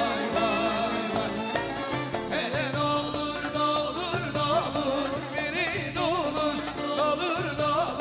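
Turkish folk song played live by a band, an ornamented wavering melody line over a steady rhythmic beat.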